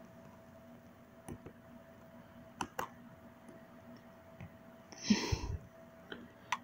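A few scattered sharp clicks, and about five seconds in a short rushing noise of about half a second, the loudest sound here.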